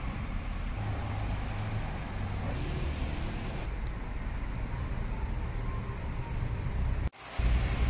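Steady outdoor background noise with a low rumble, like distant road traffic. It drops out for an instant near the end at an edit, then carries on.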